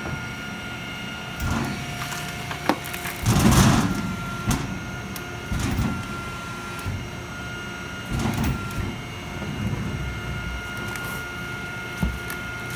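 Industrial machine running with a steady whine, with several clunks and knocks and a louder rushing hiss lasting under a second about three and a half seconds in.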